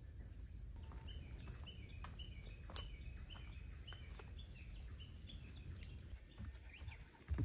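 A small bird singing, repeating a short stepped-down note about twice a second, faint over a low outdoor rumble, with a few light clicks.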